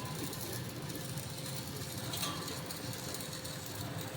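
Steady, engine-like mechanical hum with a faint constant tone and light background hiss, without distinct impacts.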